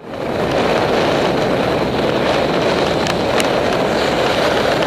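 Steady wind rush on a Contour action camera's microphone while riding a bicycle along a road, mixed with road noise, with two faint ticks a little after three seconds in.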